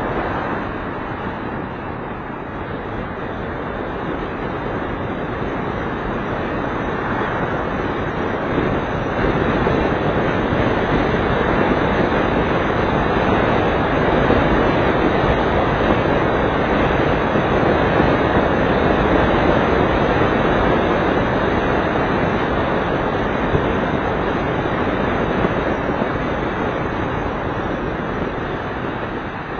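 Steady road noise of a car driving on a wet road, tyres hissing on the wet asphalt, heard from inside the cabin; it grows louder through the middle and eases near the end.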